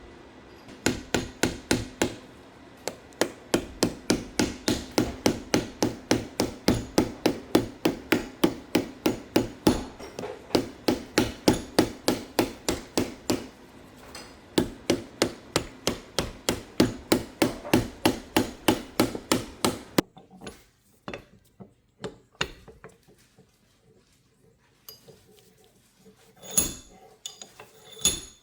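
Rapid, steady hammer blows, about four a second, with two brief pauses; they stop about two-thirds of the way through, leaving a few scattered lighter knocks and clicks.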